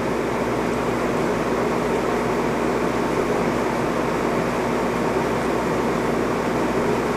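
Steady whirring of a running fan-type machine, with a faint low hum under it and no change through the whole stretch.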